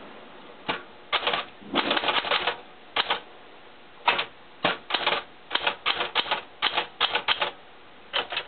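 Smith Corona Deville Deluxe portable manual typewriter being typed on, its touch selector set to heavy: bursts of quick typebar strikes in uneven runs with short pauses between.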